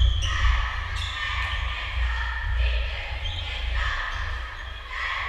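Basketball game sounds in a gymnasium: the ball bouncing on the court, with a sharp impact about a second in, over a continuous mix of voices and shuffling in the hall.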